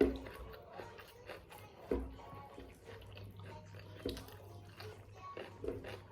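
Eating sounds: biryani being chewed and bitten, with a few soft low knocks about two seconds apart over a steady low hum.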